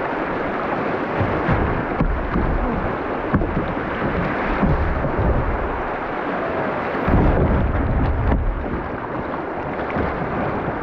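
Rushing river water through rapids, a steady loud roar of whitewater. Low rumbling buffets hit the microphone throughout and are heaviest about seven seconds in.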